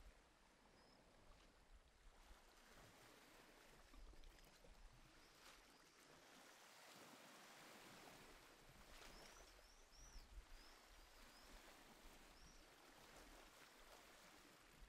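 Faint ambience of gently flowing water, with a few short, high bird chirps in the second half.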